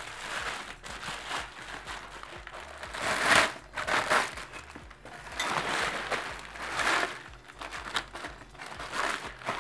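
Plastic packaging wrap crinkling and rustling in irregular bursts as a scooter deck is pulled out of it, the loudest bursts a little past three seconds in and again near seven seconds.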